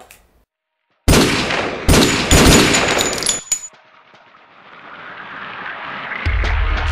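Gunshot sound effects: one loud shot about a second in, then a rapid volley of shots over the next second and a half. A rising swell follows and ends in a deep rumble near the end.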